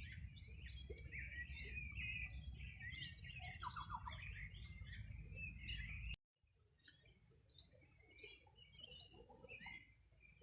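Several songbirds chirping and twittering together in a busy chorus over a low rumble. About six seconds in, the sound cuts out abruptly for a moment, then the birds go on fainter with the rumble gone.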